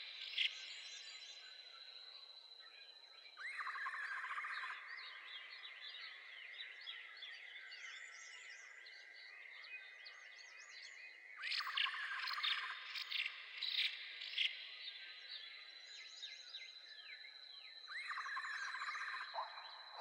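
Small birds chirping: many short, quick chirps over a steady high buzz, with a louder burst of dense, rapid chirping three times.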